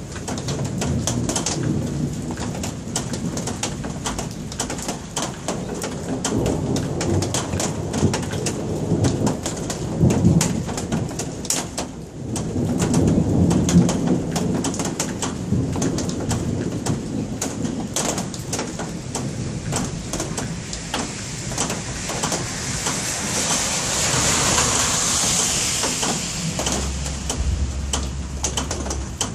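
Thunderstorm: steady rain with many drops tapping close by, and thunder rumbling that swells about ten seconds in and again a few seconds later. A hiss swells near the end.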